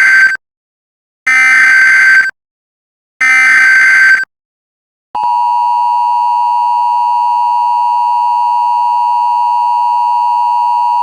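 Emergency Alert System broadcast tones: the end of one short SAME data burst and then two more, harsh and warbling, each about a second long and about two seconds apart. About five seconds in, the steady, loud two-tone EAS attention signal starts and holds without a break.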